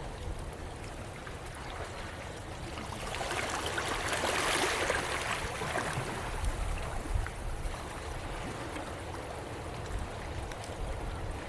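Seawater washing among tidepools, a steady wash of water with one surge that swells a few seconds in and ebbs away, over a low rumble.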